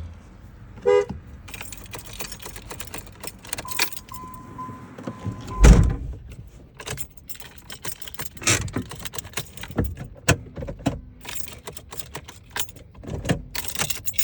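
Car keys jangling with repeated clicks as the ignition key of a 1998 Chevy Monte Carlo is worked, and the engine never turns over: a no-crank, no-start condition. A steady electronic chime tone sounds for about two seconds midway and ends with a loud thump.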